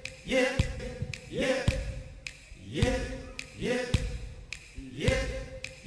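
A male singer's short sung "yep" over a live rock band, looped so that it repeats about once a second. Each repeat is a quick upward slide into a held note, with a drum hit under it.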